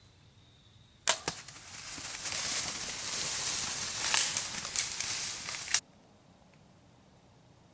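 A sling bow shot at a black bear: a sharp snap about a second in, then several seconds of loud crashing and rustling through dry leaves as the hit bear runs off, cut off suddenly.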